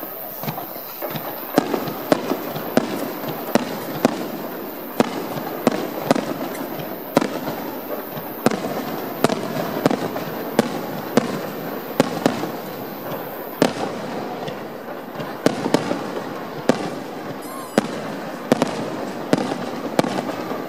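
Fireworks display: aerial shells bursting in a rapid series of sharp bangs, about two a second, over steady background noise.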